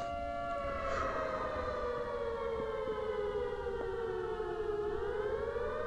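Civil defense siren sounding a pitched wail: it holds steady, then slowly slides down in pitch over about four seconds and rises back up near the end.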